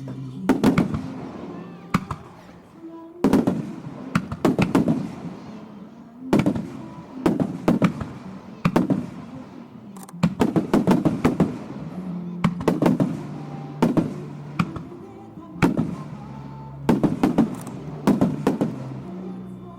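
Aerial fireworks shells bursting in quick clusters of sharp bangs every second or two, each trailing off in an echo, over background music.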